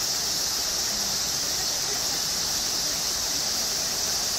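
Chorus of cicadas, a steady, unbroken high-pitched hiss.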